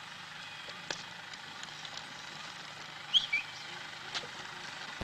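Quiet outdoor ambience on an old film soundtrack: a steady low hum under a light hiss, a few faint clicks, and a brief high two-note chirp about three seconds in.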